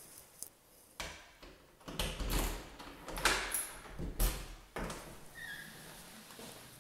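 Key rattling and turning in a door lock under a metal lever handle, with a series of sharp metallic clicks from the lock and latch.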